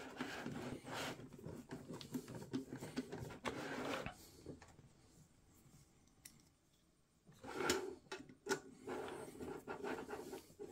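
Screwdriver driving the screws that hold a replacement fan in a steel ATX power supply case, with scratchy scraping and small clicks from handling the metal case. It stops for about two seconds midway, then the case is shifted and the scraping and clicking resume.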